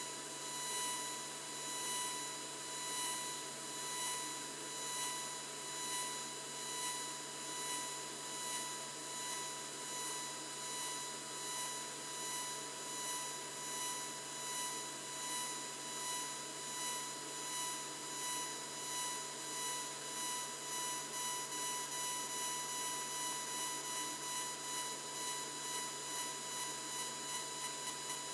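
Laser engraver marking stainless steel: a steady high-pitched whine with a hiss that swells and fades about once a second as the beam sweeps back and forth, the rhythm quickening near the end.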